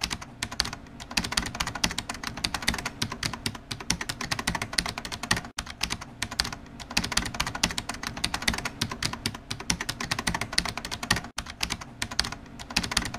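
Rapid typing on a keyboard: a dense, continuous stream of key clicks that stops briefly twice.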